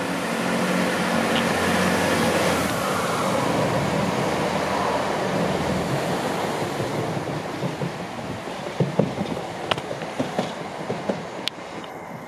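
GWR Class 165 diesel multiple unit pulling away under power, its underfloor diesel engines droning with a pitch that falls as the train comes beneath. It then goes on as a broad rumble of the train passing, with a run of sharp clicks and knocks from the wheels over the rail joints in the second half, fading as it recedes.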